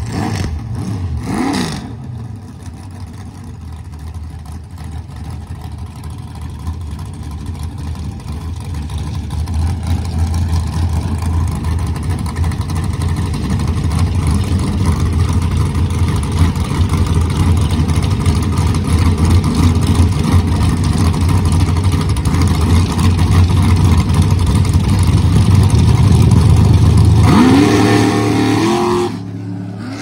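Drag car's engine running at low speed as it rolls up to the starting line, growing louder, with a brief rev a second or two in and rising revs near the end that cut back off.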